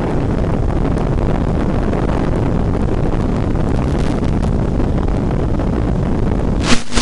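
Steady rush of wind and flight noise on the onboard microphone of a Multiplex FunCub RC model plane in flight. Near the end it briefly drops out.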